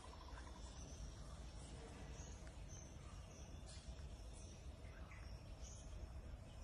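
Quiet background ambience: a faint steady low rumble with scattered short, high chirps.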